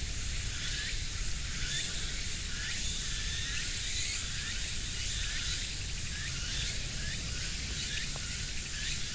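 Steady outdoor insect chorus, a dense high hiss with a short chirping note repeating about once a second, over a low rumble.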